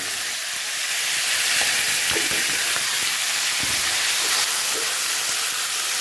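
Diced potatoes, onion, peas and green chillies frying in hot mustard oil in a metal kadai, freshly added and sizzling steadily. A metal spoon stirs and knocks against the pan a few times.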